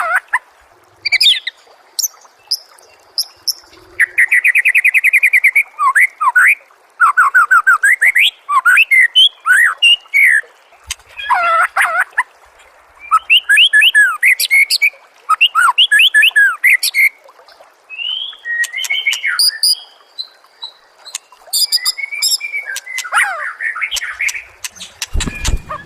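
Songbird masteran recording of the kind played to train murai (white-rumped shama): loud, varied song phrases in quick succession, with trills, quick sweeping whistles and high rapid rattles, separated by short pauses. A brief low thump near the end.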